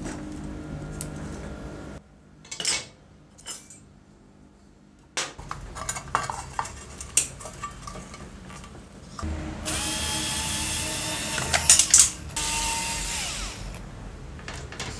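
A small electric power tool runs for about four seconds, starting about nine seconds in, among scattered clicks and clatter of metal saw parts being handled on a bench. A low steady hum is heard near the start.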